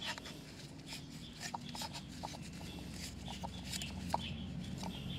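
Faint, irregular small clicks and taps as the oil filter housing cap and the old filter element are handled in rubber-coated gloves, over a low steady hum.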